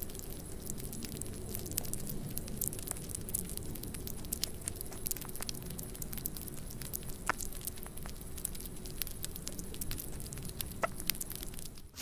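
Small pet's mouth noises close to the microphone: irregular soft clicks and crackles over a low rumble.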